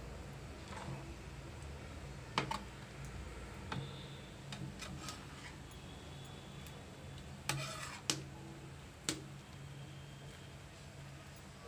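Metal spatula knocking and scraping against the side of a large kadai as grated carrots are stirred in milk: a scattering of sharp clinks, with one longer scrape about two thirds through, over a low steady hum.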